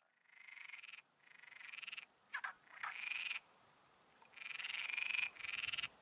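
Frogs croaking: a series of about six short, rapidly pulsed croaks, each under a second long, with short pauses between them.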